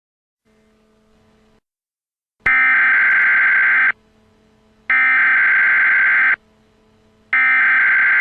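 Emergency Alert System SAME header: three harsh, buzzing bursts of digital data tones, each about a second and a half long with about a second between them, encoding the start of a new alert, here an Emergency Action Notification.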